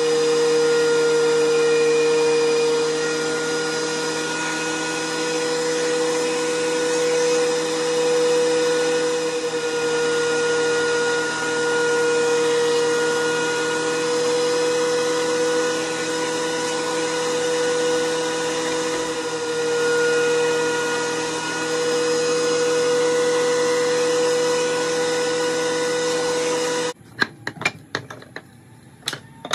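Benchtop thickness planer running with a steady high motor and cutterhead whine, its loudness swaying slightly as wood strips feed through. Near the end it cuts off abruptly, and a few light clacks of wood strips being handled follow.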